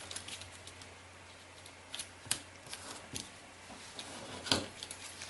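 A sheet of duo-colour kami origami paper being folded and creased by hand: scattered short crackles and rustles, the loudest a sharp crinkle about four and a half seconds in.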